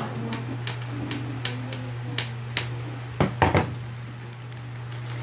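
Scissors snipping through a plastic courier mailer, a run of short sharp snips about three a second, then a few louder knocks about three seconds in, over a steady low hum.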